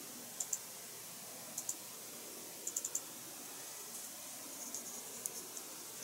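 Light, sharp clicks in small clusters: two near the start, two more a second later, a quick run of four about three seconds in, then softer scattered ticks near the end. They come from small plastic model-kit parts and a paintbrush being handled during hand-painting, over a steady faint hiss.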